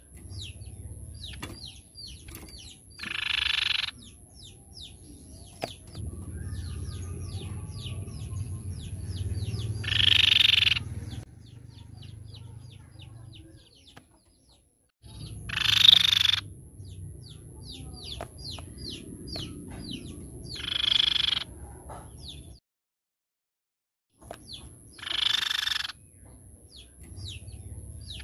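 Crescent-chested babbler (tepus pipi perak) calling: five harsh, buzzy calls of about a second each, spaced every five or six seconds, with quick thin chirps in between.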